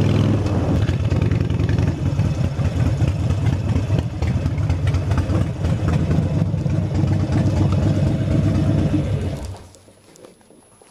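Harley-Davidson Sportster 72's air-cooled V-twin running at low speed and then idling, switched off about nine and a half seconds in, after which only faint small noises remain.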